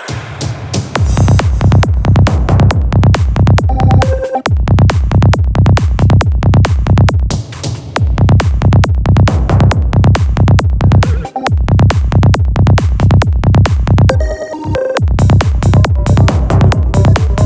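Progressive trance track with a driving, steady electronic kick-drum beat and synth tones. The full beat comes in about a second in and drops out briefly a few times.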